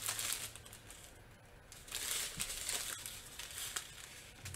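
Thin clear plastic bags crinkling as they are handled, in bursts with a short lull between them. They are diamond-painting packaging holding rhinestone drills.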